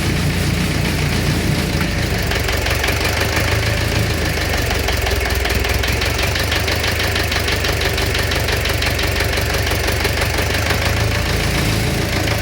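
Engine running steadily with a fast, even knocking from inside it, the knock that is the fault being recorded.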